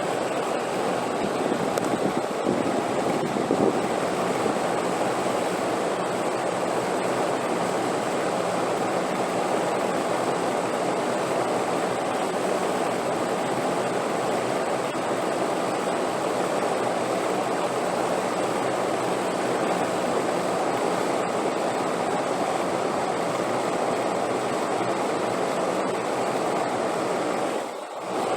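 Steady wind sound for sleep: an even, unbroken rushing noise that dips briefly about a second before the end.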